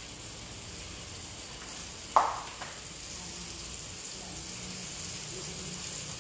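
Chicken simmering in a milk sauce in a cast-iron skillet: a steady soft sizzle and bubbling. A single sharp knock or clink about two seconds in.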